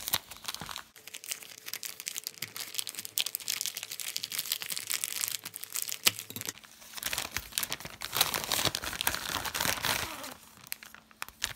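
Black plastic postal mailing bag crinkling and rustling as it is pulled open by hand, a dense crackle that is heaviest about two-thirds through and eases near the end.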